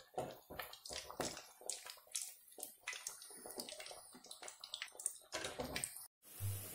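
Vadai deep-frying in hot oil in an aluminium kadai on a lowered flame, a steady sizzle with many irregular small crackles and pops. Near the end the sound cuts out for a moment, followed by a brief low hum.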